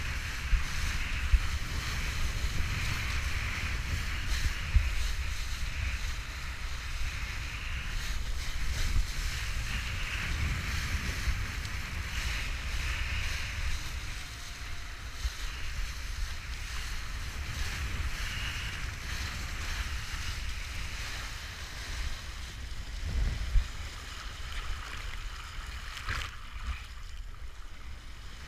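Strong wind buffeting the action camera's microphone as a low rumble, over the steady hiss of a kiteboard planing through choppy water and throwing spray, with a few brief sharp knocks as the board hits the chop.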